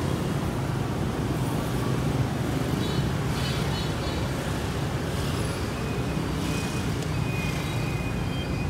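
Steady traffic noise of a busy city street: a continuous low rumble of passing vehicles.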